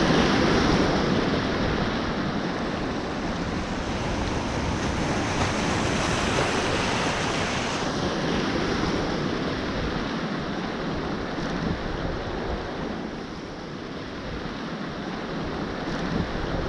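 Sea swell washing and surging through kelp over a rocky intertidal reef, a steady rush of moving water, with wind buffeting the microphone.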